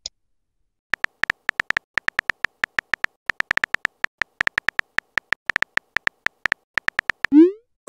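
Simulated phone-keyboard typing sound from a texting-story app: a run of short, high, identical clicks at an irregular pace of a few per second as a message is typed out letter by letter. Near the end comes a quick sweeping whoosh, the message-send sound.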